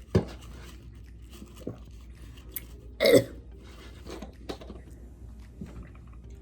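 A woman chewing a mouthful of macaroni and cheese close to the microphone: wet mouth sounds, a sharp click just after the start and a short voiced throat noise about three seconds in.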